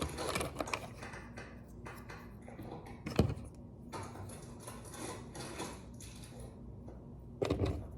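Small plastic toy pieces being handled and fitted together by hand: light clicks and rustles, with a sharp knock about three seconds in and a heavier thump near the end.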